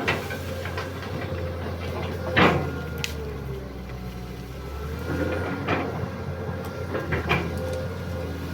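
Excavator engine running steadily with a faint hydraulic whine, broken by several sharp knocks and creaks, the loudest about two and a half seconds in.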